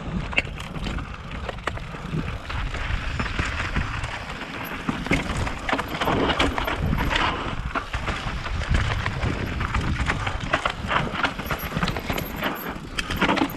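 Mountain bike descending a dirt trail: tyres rolling over dirt and stones with a steady low rumble, and the bike clattering and knocking over bumps many times.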